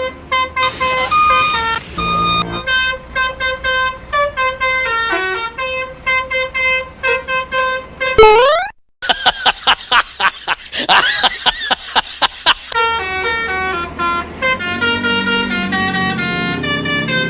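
Bus 'telolet basuri' musical horn playing a tune of loud stepped notes. About two-thirds of the way through it breaks off after a rising glide and goes into fast pulsing, sweeping tones before the stepped melody returns.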